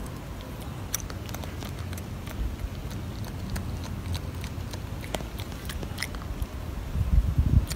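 Golden snub-nosed monkey biting and chewing a small piece of food, a string of irregular crisp clicks. A low rumble underneath grows louder briefly near the end.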